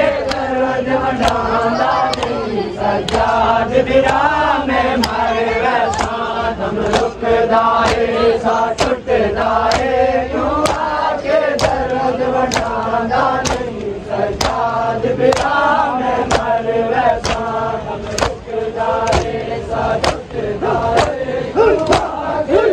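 A crowd of men chanting a noha (Shia lament) in unison, over the sharp slaps of open-handed chest-beating (seena zani) struck together in a steady beat a little faster than once a second.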